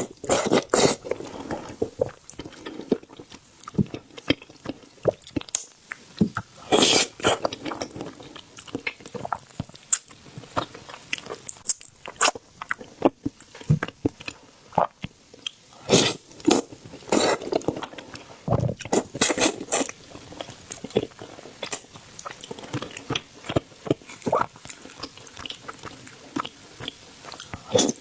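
A person biting and chewing food close to the microphone: irregular sharp crunches and wet mouth smacks, a few loud bites standing out, among them about 7 s, 16 s and 19 s in.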